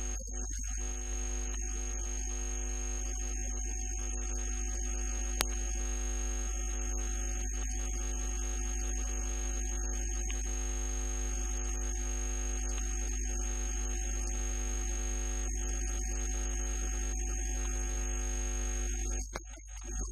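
Steady electrical mains hum with a thin high whine over it, with no speech. A single sharp click comes about five seconds in, and the hum breaks up shortly before the end.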